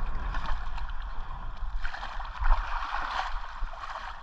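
Shallow seawater sloshing and splashing close by, with small irregular splashes, over a steady low rumble of wind on the microphone.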